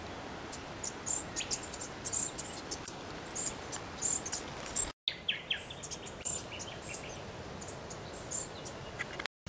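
Bush ambience: short, high insect chirps repeating irregularly over a steady hiss, with a few lower bird chirps about five seconds in. The sound drops out for an instant twice, at cuts.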